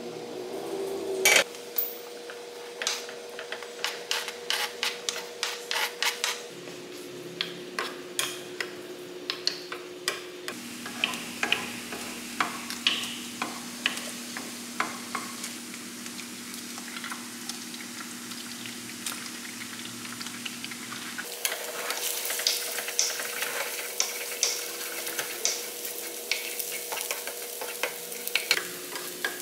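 Diced ham frying in oil in a nonstick pan, sizzling, while a spatula clicks and scrapes against the pan as it is stirred. The sizzle grows louder about two-thirds of the way in, over a steady low hum.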